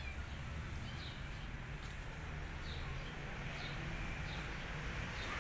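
A small bird chirping in the background: a short, high, falling chirp repeated about once a second, over a low steady rumble.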